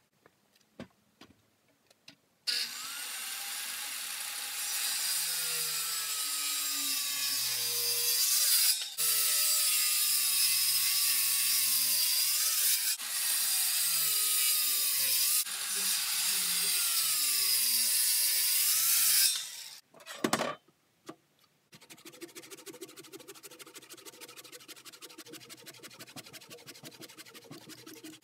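Corded circular saw ripping lengthwise through a reclaimed Douglas fir beam, its motor pitch sagging and recovering under load, with a few short breaks in the cut. After a few clicks the saw starts, runs for about seventeen seconds and stops; near the end a quieter, fast, even rhythm follows.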